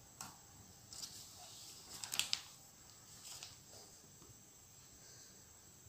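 Quiet room tone with a few faint, short soft noises, the loudest about two seconds in.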